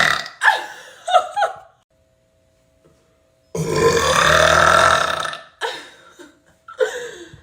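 A woman burping: one long, loud, deep burp lasting nearly two seconds about halfway through, with a burp tailing off at the start and a few shorter burps around it.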